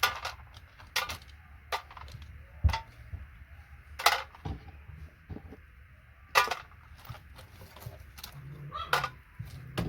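Sharp plastic clicks and snaps at irregular intervals, about seven in all, as parts are pried and pulled off a keyboard.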